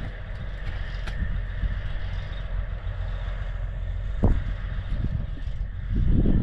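Backhoe engine idling, a steady low rumble, with a single knock about four seconds in and louder knocking and scraping near the end.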